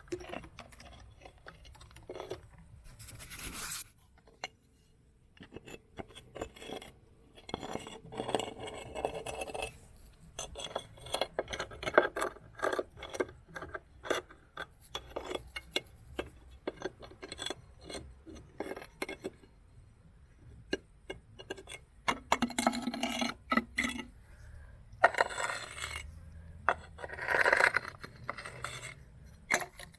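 Stones clattering and grinding against one another: dense runs of sharp clicks and scrapes that swell and fade in several waves.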